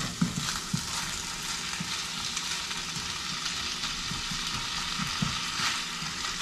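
Rice sizzling as it stir-fries with soy sauce in a skillet, a steady hiss, with a spatula scraping and tapping against the pan now and then.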